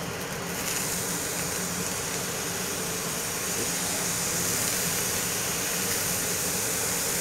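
Teriyaki sauce sizzling as it is poured and brushed onto ramen noodles in a hot grill pan: a steady hiss that gets brighter a little under a second in. A range hood fan hums steadily underneath.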